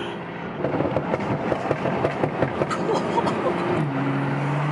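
BMW 340i (F30) exhaust on the BM3 tune, crackling and popping on the overrun, heard from inside the cabin. A steady engine note comes in about four seconds in.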